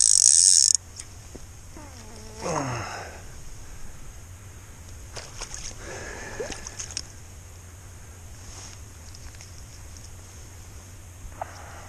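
Fishing reel's clicker ratcheting loudly, cutting off under a second in. Then light splashing and dripping as a hand works in shallow water around a landed steelhead, with a brief sound falling in pitch about two and a half seconds in.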